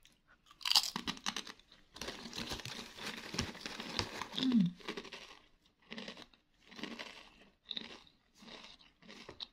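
Plastic potato-chip bag crinkling and rustling as a hand reaches in among the chips, with a few sharp crackles about a second in, a dense stretch of rustling in the middle, then shorter rustles about once a second.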